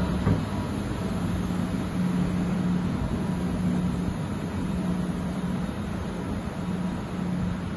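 Steady background hum of a large industrial hall: a low, constant tone over an even noise haze, typical of ventilation and running plant.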